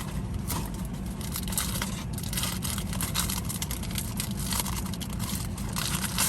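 Paper and wrappers rustling and crinkling in irregular bursts as corn dogs are taken out, over a steady low rumble.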